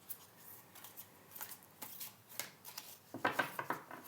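Oracle cards being shuffled by hand: a scatter of soft flicks and clicks, busier and louder about three seconds in.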